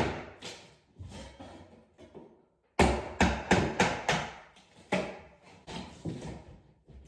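A run of sharp knocks, several strikes in quick succession at about four a second, each trailing off, in clusters separated by short gaps.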